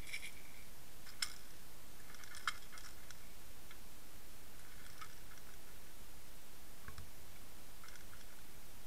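Steady underwater hiss picked up by a towed underwater camera on a trolling line, with scattered faint clicks and ticks, the sharpest about a second in and again about two and a half seconds in.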